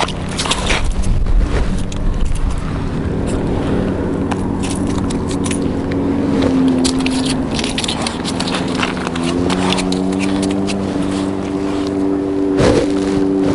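An engine runs steadily, its pitch creeping up and then stepping higher about nine seconds in. Scattered sharp clicks and scrapes from close handling sound over it.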